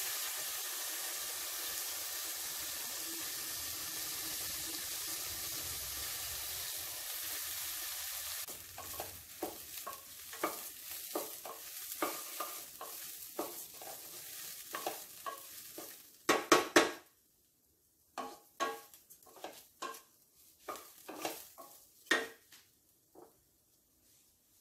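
Raw rice sizzling steadily in hot ghee in a stainless steel pressure cooker, then a wooden spatula scraping and stirring it against the pot in a series of short strokes, the sizzle fading out after about eight seconds. The rice is being sautéed in ghee before the water goes in.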